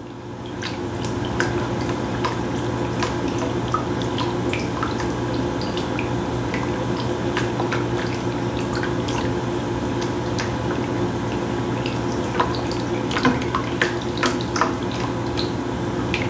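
Whole milk being stirred into a flour roux in a pan: a steady liquid swishing, with many light clicks of the utensil against the pan.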